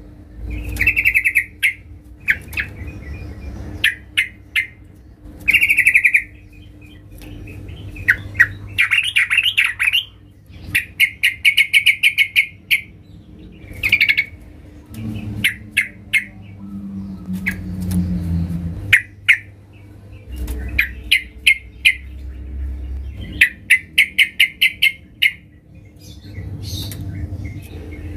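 Caged yellow-vented bulbul singing: short, loud bubbling phrases repeated over and over, with sharp clicky notes between them. A faint steady hum runs underneath, and a low sound falling in pitch passes about midway.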